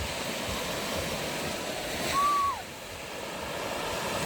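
Steady wash of sea waves and surf. About two seconds in, a single short high tone holds briefly, then falls away.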